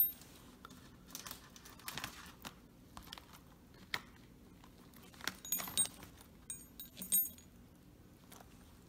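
Small metal clicks and clinks of swivels, a circle hook and a crimp handled by hand while heavy monofilament leader is worked through them, with plastic crinkling. A sharp click right at the start and brief jingles of metal parts a little past halfway.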